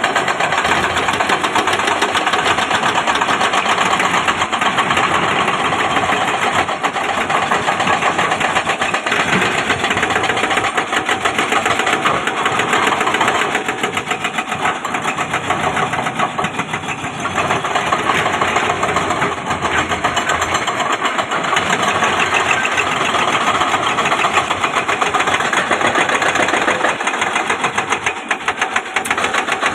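Excavator's diesel engine running steadily under load, a dense rapid clatter with small dips in level now and then.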